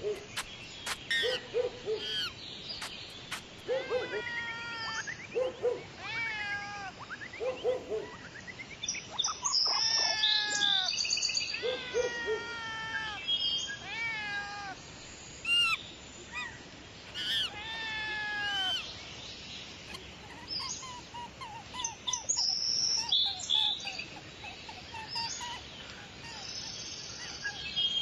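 Bird calls: low repeated hoots for the first several seconds, overlapping and followed by many falling calls and high chirps, ending in a quieter run of quick chirps.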